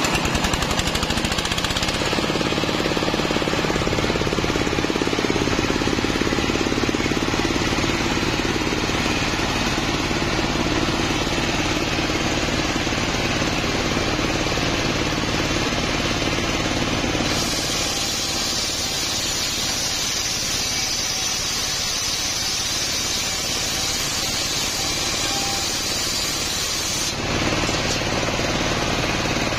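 Homemade table saw at work: a large circular saw blade driven by a stationary engine, ripping a coconut palm log lengthwise. The engine's fast, steady knocking runs throughout, and a higher hissing cutting sound joins in past the middle for about ten seconds.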